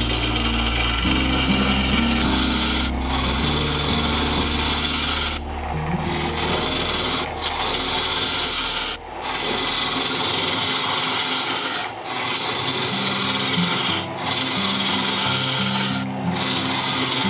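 A lathe-turning gouge cutting the inside of a spinning olive wood and resin bowl: a steady scraping hiss, broken by short gaps about every two seconds as the tool comes off between passes.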